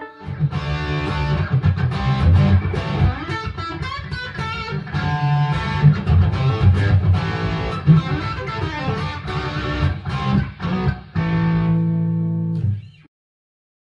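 Electric guitar music with a strong low end and busy picked notes, closing on a held chord that cuts off abruptly near the end.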